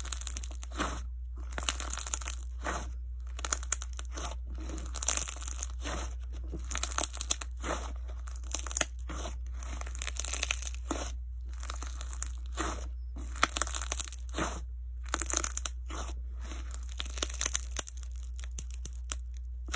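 Peach jelly slime with melamine-sponge 'fruit flesh' pieces being squeezed and pressed between the hands, crunching and crackling in repeated squeezes with short pauses between them. A low steady hum runs underneath.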